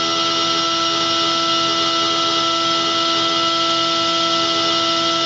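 Kitamura MyCenter 2X-if CNC machining center spindle running at high speed with a steady high whine, several tones held at a constant pitch. It has slight harmonics but no vibration.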